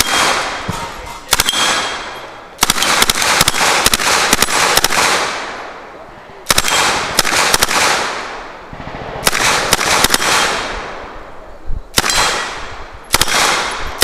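Submachine gun firing a string of short full-auto bursts, about seven of them, some under a second and one of about two and a half seconds. Each burst trails off in a long echo.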